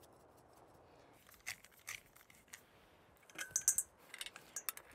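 Small hand-twisted spice grinder worked over a stainless steel bowl: a run of short, faint crunching clicks that starts about a second and a half in and comes thicker near the end.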